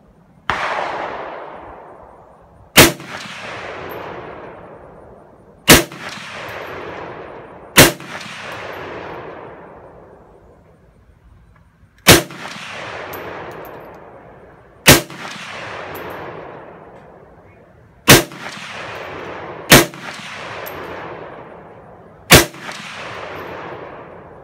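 Albanian SKS semi-automatic carbine firing 7.62x39 rounds, eight single shots at uneven intervals of two to four seconds. Each sharp report is followed by a long echo that dies away over a couple of seconds.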